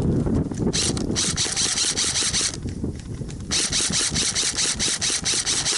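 Airsoft gun firing on full auto in two long bursts of rapid shots, the second starting about three and a half seconds in, over rustling movement.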